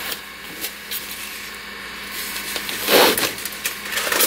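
Raccoon pawing and scratching at a glass door: light taps, then a louder scrape about three seconds in.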